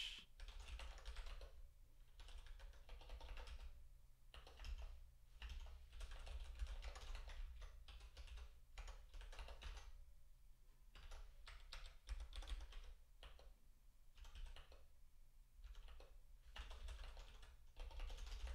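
Typing on a computer keyboard: faint runs of keystrokes broken by short pauses, over a low steady hum.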